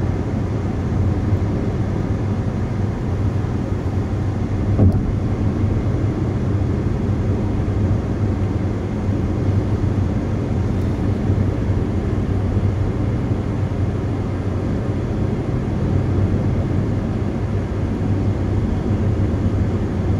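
A car driving at road speed: steady engine and tyre noise with a low hum, and a single brief knock about five seconds in.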